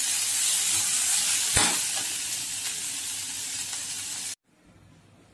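Ginger, curry leaves and dried red chillies sizzling as they fry in oil in a kadai, stirred with a perforated metal skimmer, with one clink of the skimmer against the pan about one and a half seconds in. The sizzle cuts off suddenly a little over four seconds in, leaving near-quiet room tone.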